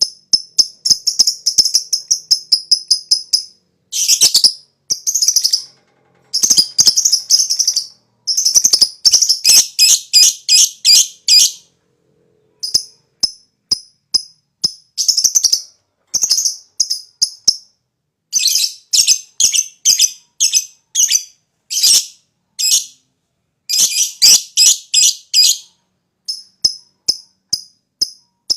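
Lovebird calling in runs of rapid, high, shrill chirps with short breaks between them. Several runs speed up into a fast rattling chatter, the 'ngekek' call that keepers prize.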